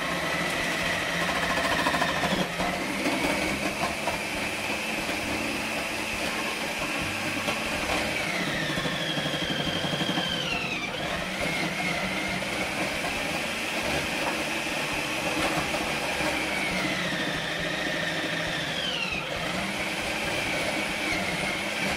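Ninja Professional food processor running on its grating disc, shredding a block of cheese pushed down the feed chute. The motor's whine is steady, climbing and then dropping sharply in pitch twice, about ten seconds in and again near the end.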